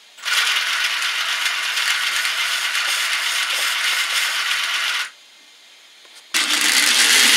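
3D-printed plastic drive gears of a homemade RC car rattling and skipping as the car is rolled back and forth by hand: the gears are not meshing properly. A long stretch of about five seconds, then a second, louder stretch starting about six seconds in.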